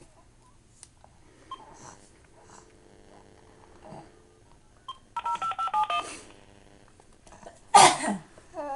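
A quick run of phone keypad tones as a number is dialed. About two seconds later comes one loud sneeze, then a baby starting to laugh near the end.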